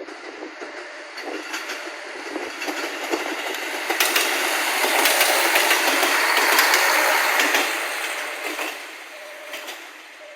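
Train passing by: a rushing noise builds to a peak about five to seven seconds in and then fades, with rapid clicks of the wheels over the rails. A short repeating tone sounds near the end.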